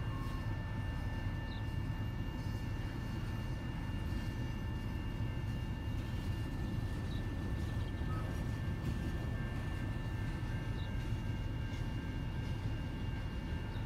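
Freight cars of a long mixed freight train rolling past a level crossing, heard from inside a car: a steady low rumble of wheels on rail, with a faint high steady tone over it.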